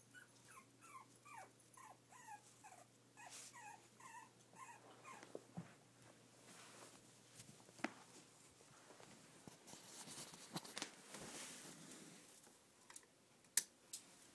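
Brussels Griffon/Shih Tzu–miniature poodle mix puppy whimpering in a quick run of short, high squeaks for about the first five seconds. Faint rustling and scattered knocks follow, the sharpest near the end.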